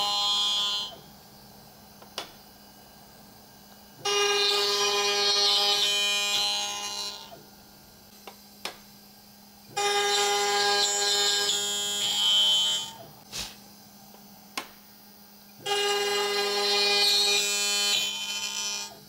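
CNC boring machine spindle turning an end mill at about 6000 rpm, plunging into hardwood to cut slots for piano moulding: a loud steady whine for about three seconds with each cut, about every six seconds, cutting cleanly without burning. Between cuts the idling spindle hums quietly, with a few short clicks.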